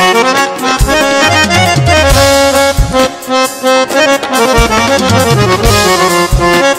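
Harmonium being played in a running melody, its reeds sounding continuously as the notes change quickly.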